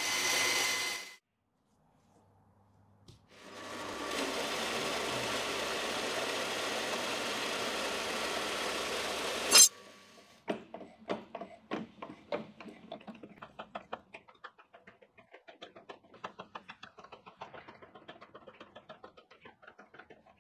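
Mild-steel flat bar being bent in a hand-lever bench press: a run of light metallic clicks and knocks, several a second, as the press is worked. Before that, a power tool runs steadily for about six seconds and stops with a sharp click, the loudest sound here. Near the start, a brief ringing scrape as the steel bar is lifted off a plywood template.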